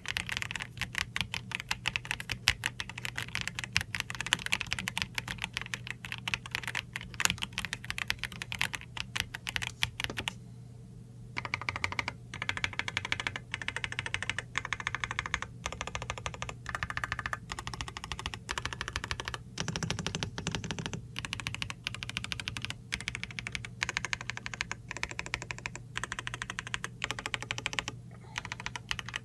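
Typing on a Redragon Artemis K719 Pro Graffiti mechanical keyboard: fast runs of key clicks, a clickety-clack, with a brief pause about ten seconds in. A faint steady low hum sits underneath.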